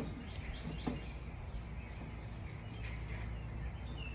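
Birds chirping in short calls over a steady low hum.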